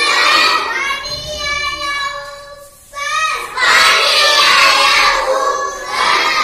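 A young boy singing a Hindi children's poem, with a short break in his voice about halfway through.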